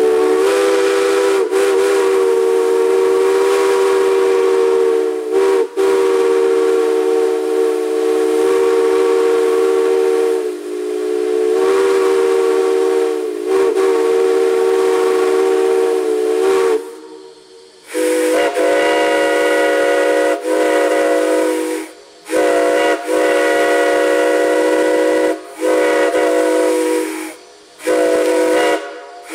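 Chime steam whistles blowing. One whistle holds a long multi-tone chord for about seventeen seconds, dipping briefly a few times. Then a different chime whistle with a higher chord gives four blasts of two to four seconds each, with steam hissing under them.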